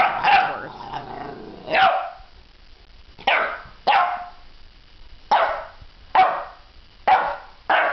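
Eleven-week-old boxer puppy barking at a metal floor sculpture: a low growl over the first two seconds, then a string of about seven short, sharp puppy barks roughly one a second. It is the wary barking of a puppy unsettled by an unfamiliar object.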